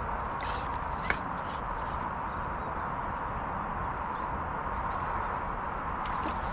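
Light clicks and knocks from a carbon fishing pole and landing net being handled while a fish is played, one sharper click about a second in, over a steady hiss.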